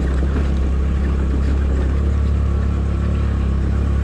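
Motor scooter engine running steadily while being ridden, a low even drone as it pulls up a slope.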